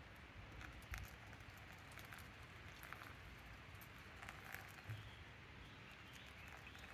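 Near silence with faint, scattered light rustles and small clicks.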